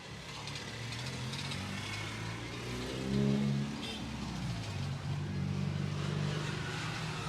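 A motor vehicle's engine running close by in street traffic. It swells and rises in pitch about three seconds in, then settles to a steady hum.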